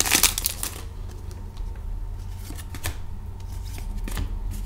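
A trading-card pack wrapper crinkling as it is torn open, dying away about a second in, then the soft slides and light ticks of cards being handled and flipped through.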